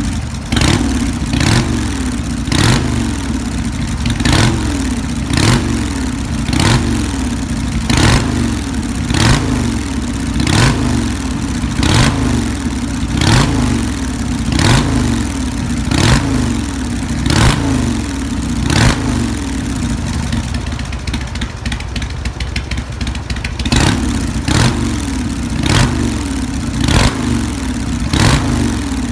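Harley-Davidson Sportster V-twin running through drag pipes fitted with an inner silencer. It is blipped repeatedly from idle in short revs, about one every second and a half, each dropping straight back to idle, with a short break about three-quarters of the way through.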